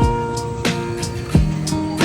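Background music: held notes with a regular beat of low falling kick-drum thumps.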